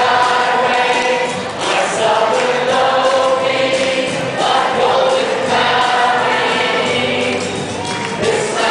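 A group of voices singing together like a choir, holding long notes that change every second or two.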